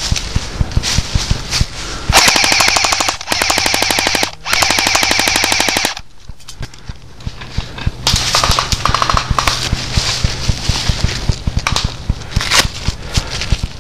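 Airsoft gun firing on full auto: two long bursts of rapid, evenly spaced shots about two seconds in, with a brief break between them. Irregular crackling and rustling of footsteps through dry leaves and bamboo fill the rest.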